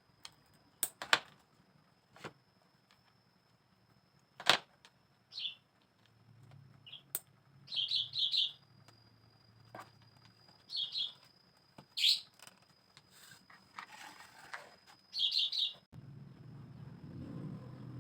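A small bird chirping in short groups of two or three quick notes, with sharp clicks or taps scattered between them and a faint steady high tone underneath.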